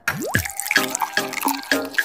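Water trickling and dripping from a small toy watering can, mixed with a run of short pitched plinks, about three a second.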